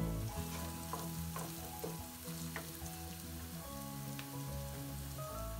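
Chopped onions and tomato paste sizzling in olive oil in a pot while a wooden spoon stirs them, with a few clicks of the spoon against the pot. Soft background music plays underneath.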